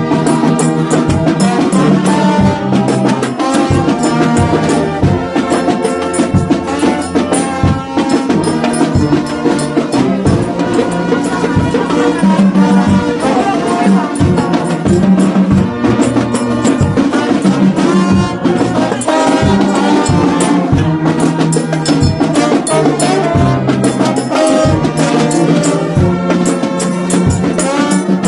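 Brass band playing live: horns carrying the tune over a steady drum beat, loud throughout.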